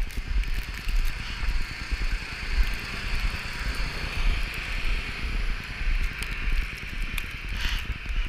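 Blizzard wind buffeting the camera microphone in uneven low gusts, over a steady hiss of wind and snow.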